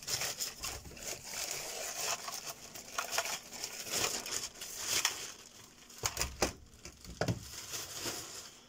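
Thin plastic carrier bag crinkling and rustling as hands rummage inside it. A few light knocks follow about two-thirds of the way through, as two graphics cards are set down on the bench.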